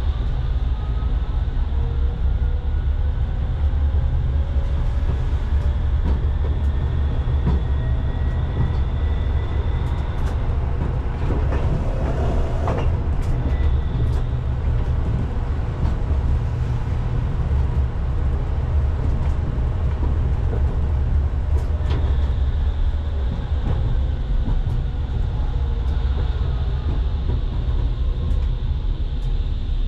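Coupled Pragoimex T3R.EV trams running between stops, heard from the cab: a steady low rumble of wheels on rail with scattered clicks. A thin electric whine climbs in pitch over the first ten seconds or so and glides back down after about twenty seconds, typical of the traction drive as the tram accelerates and then slows.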